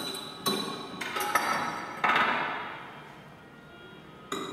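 Sound-art soundscape of clinks and knocks: a handful of sharp strikes, each fading out in a ring, the loudest about two seconds in and one more near the end.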